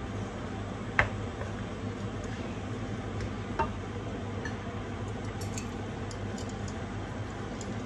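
Wooden spatula stirring ground meat and vegetables in a wok, with a sharp knock against the pan about a second in and another at about three and a half seconds, over a steady low hum.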